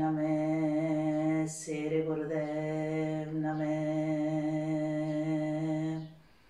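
A woman chanting a mantra on one long held note, broken once for a quick breath about one and a half seconds in; the chant stops near the end.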